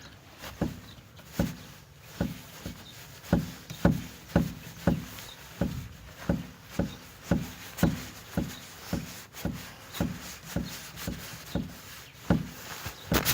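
Dull knocks from a Duster's rear wheel suspension repeating evenly about twice a second: the rear suspension knock the owner is demonstrating.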